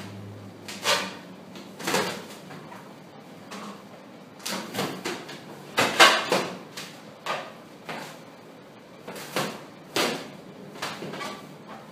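Hands squeezing and rubbing an inflated latex balloon, making irregular rubbery squeaks and rubs about once a second.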